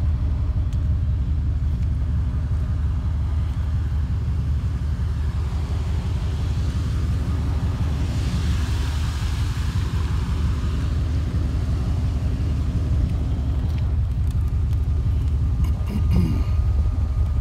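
Motor vehicle engine running with a steady low rumble. A broad hiss swells and fades about nine seconds in.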